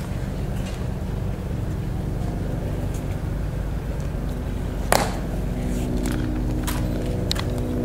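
Sharp clicks of a Tomb Guard's metal-tapped dress shoes on the stone plaza: one loud click about five seconds in, then footsteps clicking as he marches off, over a steady low rumble. A steady hum of several tones comes in just after the first click.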